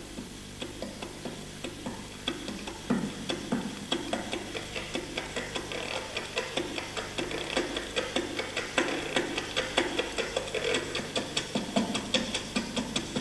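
Chromatic button accordion played in quick, short, detached notes, each with a sharp click at its start.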